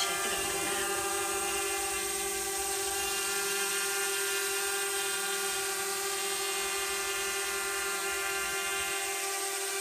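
Small folding quadcopter drone hovering close by, its propellers giving a steady whine that holds one pitch.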